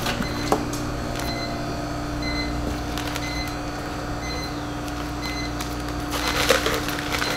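Clear plastic poultry shrink bags crinkling and rustling as they are handled, with denser crinkling near the end, over a steady low machine hum. A few faint short electronic beeps sound midway.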